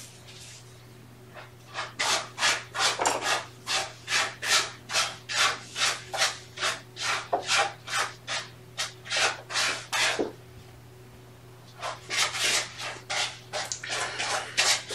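Rhythmic rasping rubs at close range, about two to three strokes a second, as a black kitten is cuddled against a person's chest. The strokes stop for about two seconds in the middle, then start again.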